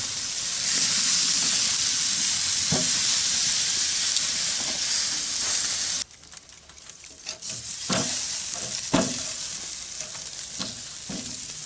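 Thick pork steaks sizzling on a charcoal grill grate, a loud steady hiss. About six seconds in the sizzle drops suddenly to a quieter level, with a few clicks and knocks as the meat is worked on the grate.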